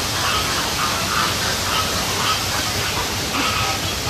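Birds calling in short, repeated notes over a steady rushing background noise.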